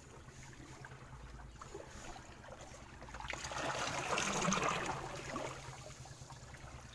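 Seawater sloshing and washing through rock crevices at the waterline, with a surge that swells up about halfway through and ebbs away.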